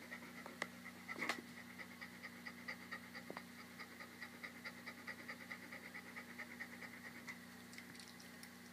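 A heavily pregnant Labrador retriever panting rapidly, about four breaths a second, with the panting stopping near the end. A few sharp clicks come about a second in.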